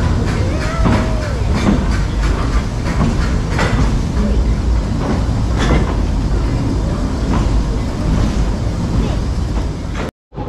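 A 2 ft gauge steam tank locomotive moving slowly along the platform, with a steady low rumble and frequent clanks and knocks. The sound cuts out for a moment near the end.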